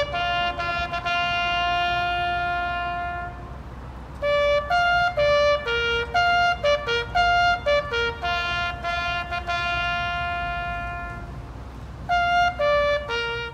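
A solo bugle call on a brass horn: a long held note, then runs of short notes on a few pitches with another long held note, and more short notes near the end.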